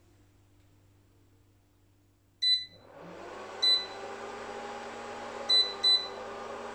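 Induction hob being switched on: four short electronic beeps from its control panel, the first about two and a half seconds in, while its cooling fan starts up and settles into a steady hum.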